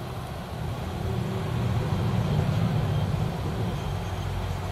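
Hot air rework station blowing a steady stream of hot air onto heat-shrink tubing to shrink it: a continuous rush of air over a low hum, swelling a little through the middle and easing near the end.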